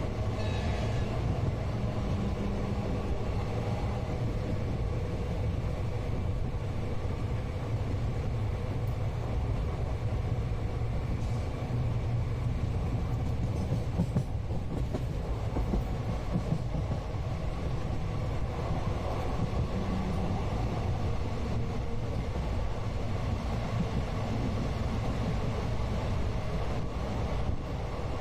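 Passenger train running along the track, heard from inside the coach: a steady low rumble of wheels and carriage with a faint hum, with no clear beat of rail joints.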